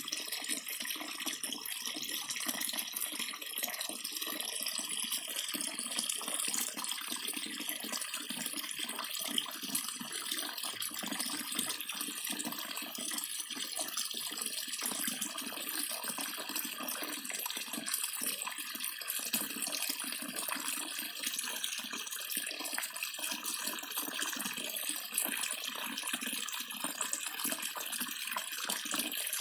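Water running steadily from a tap, a continuous splashing hiss.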